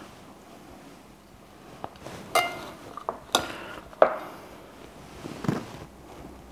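Metal tongs clinking against a ceramic salad bowl and plate while salad is served: about four sharp clinks with a brief ring, the first about two seconds in.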